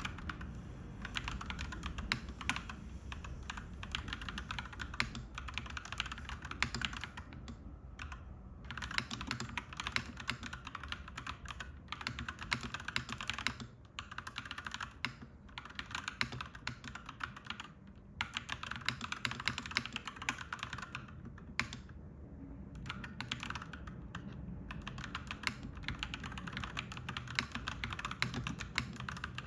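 Clacky mechanical keyboard being typed on in fast, continuous runs of keystrokes, broken by a few short pauses.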